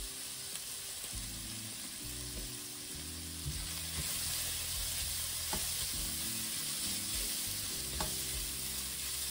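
Chopped leeks, carrots, shallot and garlic sizzling in oil in a stainless steel pan, the vegetables being pre-cooked. From about four seconds in a spatula stirs and scrapes them, with a few light clicks against the pan, and the sizzle grows a little louder.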